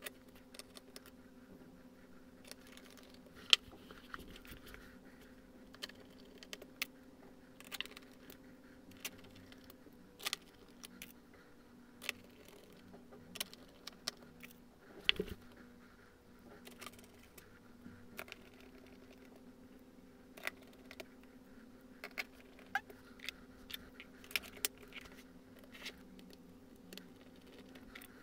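Sporadic small clicks, taps and scrapes of a screwdriver and plastic and metal parts being handled while screws and components go back into an open laptop's underside. Two knocks stand out, a few seconds in and about halfway through, over a faint steady hum.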